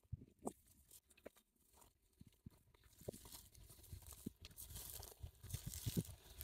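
Faint footsteps crunching and rustling through dry grass and brush, with scattered soft thuds; the rustling gets louder from about three seconds in.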